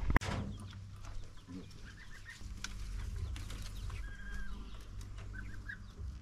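Young chicks peeping faintly now and then, in short chirps, over a low steady rumble. A sharp knock comes right at the start, and light clicks are scattered through.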